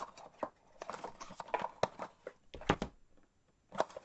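Handling of a cardboard trading-card box as it is opened and emptied: irregular light clicks, taps and scrapes, with a sharper double tap about two-thirds of the way in.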